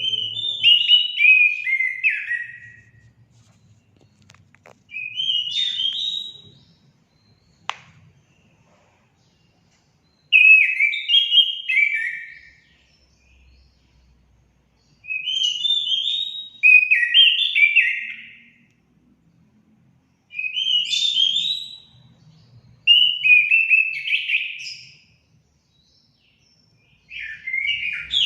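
Orange-headed thrush singing loudly: phrases of about two seconds, each a quick run of clear notes stepping down in pitch, repeated every few seconds with short pauses between.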